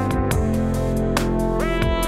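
Background music: sustained instrumental notes over an even, regular beat.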